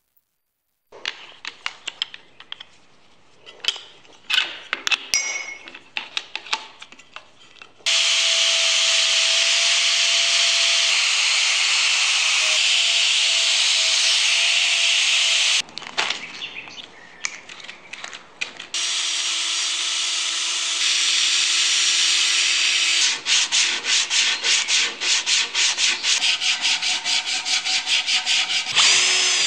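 Angle grinder carving a glued-up block of cherry and maple, running steadily against the wood in two long stretches with scattered scrapes and knocks around them. Near the end come quick, regular back-and-forth strokes of hand sanding on the carved wood.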